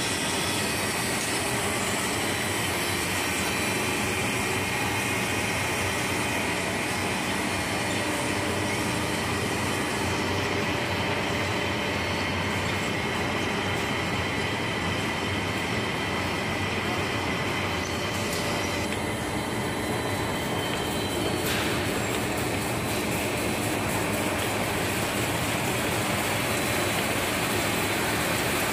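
Commercial popcorn production line running: a steady mechanical rattle and hum from the machines, conveyors and sifting equipment. Its higher hiss shifts about 20 seconds in.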